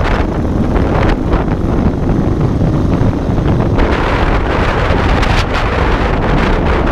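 Heavy wind buffeting on the camera microphone of a motorcycle at freeway speed, a steady rush over the low rumble of the 2022 Indian Chief Dark Horse's V-twin engine. The wind hiss grows stronger about four seconds in.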